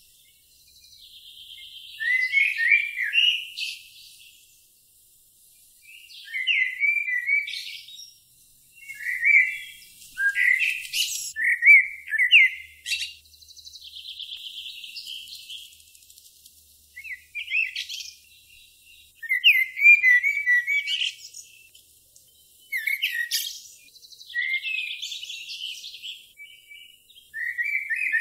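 Songbird singing short, quick chirping phrases every few seconds, some with a buzzy trill between them.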